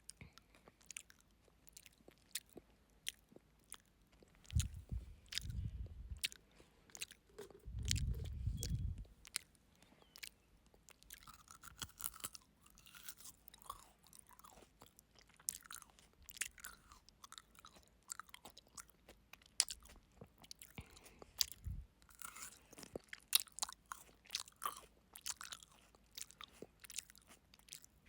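Close-miked chewing of frozen grapes: many sharp crunches and clicks, with wetter mouth sounds later on. About five and eight seconds in, two heavy breaths rumble on the microphone.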